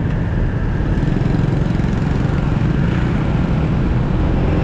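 Motor scooter riding in city traffic, picking up speed: a steady low rumble of engine, tyres and wind on the rider's camera microphone.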